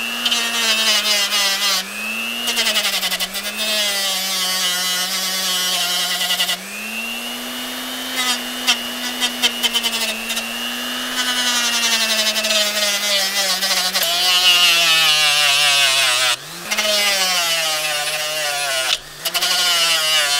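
A corded handheld grinder with an abrasive disc grinds a steel wrench held in a vise. The motor's hum runs with a bright grinding hiss. In the second half the motor's pitch sags and wavers as the disc is pressed harder into the steel.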